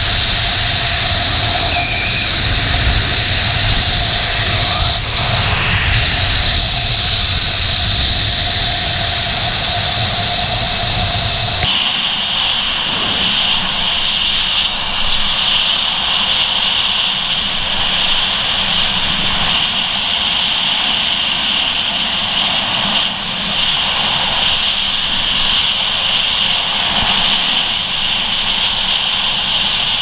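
Loud, steady rush of wind over a helmet-mounted camera's microphone during a fast parachute canopy flight. Its tone changes abruptly about twelve seconds in, with less low rumble and a brighter hiss after that.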